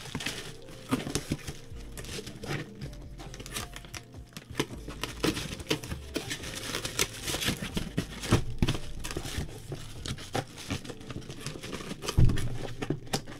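Cardboard box and its packaging handled by hand: irregular crinkling and rustling with scattered light knocks, and a heavier thud near the end.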